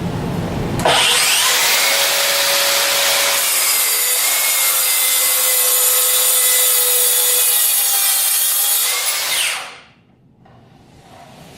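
Makita cordless track saw ripping through plywood at full depth. The cut starts abruptly about a second in and runs steadily with a whine for about eight and a half seconds, then stops near the end.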